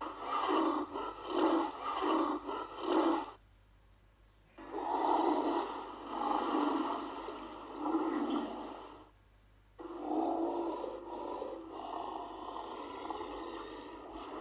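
King Kong monster sound effects: a run of short, rhythmic grunting snorts, then after a brief gap a long growling roar, then after another gap a second drawn-out growl.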